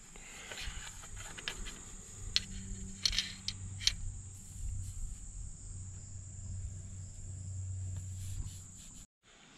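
A steady high-pitched insect drone, with a few light clicks and taps from hands and a flashlight against the bare engine block, over a low hum. All sound cuts off suddenly about nine seconds in.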